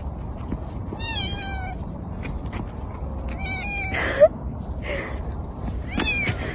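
A cat meowing three times, each meow a little falling in pitch. The second meow ends in a short, loud cry.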